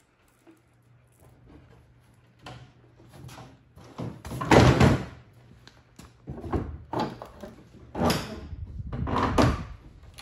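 Snowmobile hood on a 1971 Skiroule RT500 being swung shut with a loud thump about four and a half seconds in, followed by several more knocks and rattles as the hood and body are handled.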